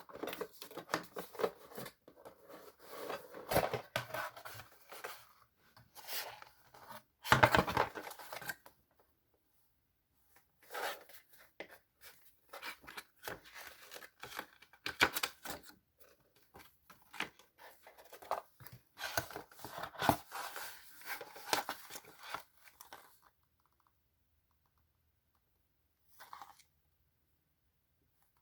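Packaging being torn and crinkled open by hand: rustling, crackling and tearing in bursts, with a short pause about 9 seconds in. It goes quiet about 23 seconds in, apart from one brief rustle a few seconds later.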